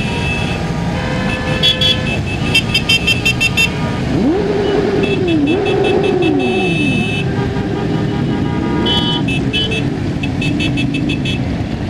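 Many short, high electronic horn beeps in quick trains. A siren-like wail sweeps up and down about four seconds in, over steady traffic noise.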